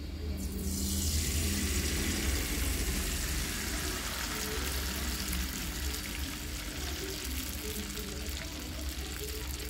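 Thick pale batter poured into hot oil in a non-stick frying pan, setting off a sizzle about half a second in that carries on steadily while the pouring goes on.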